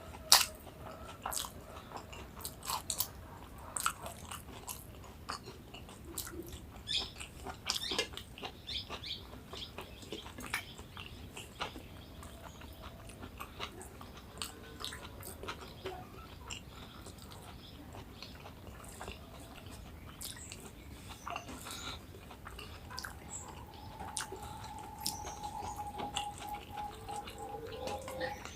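Close-miked chewing and biting of crunchy food, with sharp crunches and mouth clicks, most of them in the first half. A steady high tone starts a few seconds before the end.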